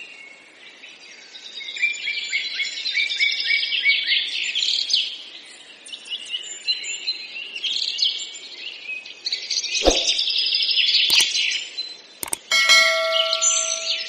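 Many small birds chirping and twittering, a dense run of short high calls. A few sharp clicks come about ten seconds in, and a short steady electronic-sounding tone near the end.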